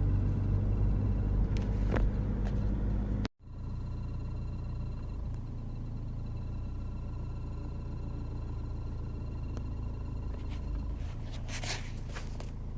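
Cabin noise of a Mercedes W203 C200 CDI with its four-cylinder diesel running and the heater blower on: a steady low rumble with faint thin whine tones and occasional short clicks or chirps from the dashboard, the chirping coming from a dirty heater blower fan. The sound cuts out abruptly about three seconds in and comes back slightly quieter, with a brief rustle near the end.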